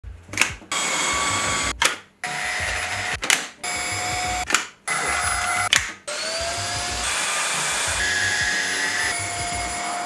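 Xiaomi Mi handheld cordless vacuum cleaner's brushless motor running with a high whine, in short stretches cut by sharp clicks and brief drops. About six seconds in, it spins up with a rising whine and keeps running, and its pitch shifts near the eight-second mark.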